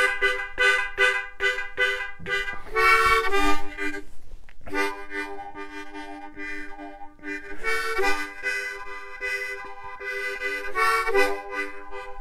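Harmonica playing a tune in chords, several notes sounding at once in short rhythmic strokes, with a brief break about four seconds in.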